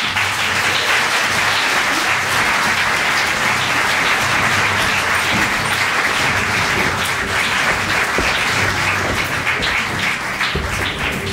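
Audience applause, a dense steady clapping that breaks out at the end of a scene, with music faintly underneath.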